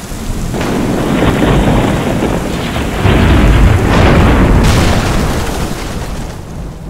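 Thunderstorm sound effect: a long rolling rumble of thunder over rain. It grows louder about three seconds in and fades away near the end.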